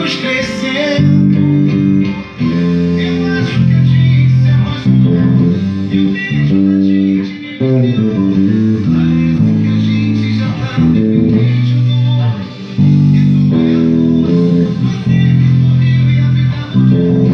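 Bass guitar with freshly changed strings playing prominent low notes along to a recorded pagode song in an instrumental stretch.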